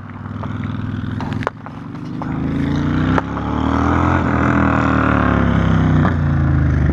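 Engine of another rider's small off-road vehicle coming closer. It grows louder over the first few seconds, and its pitch rises and then falls as it nears. There is a single sharp click about three seconds in.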